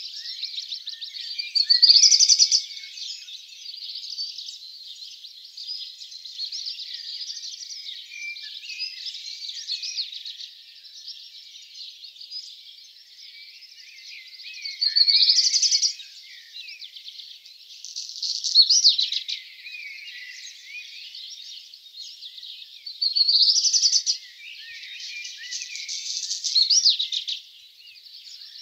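Dawn chorus of several songbirds: a continuous weave of distant chirps and trills, with louder, nearer song phrases standing out about five times, each lasting a second or two.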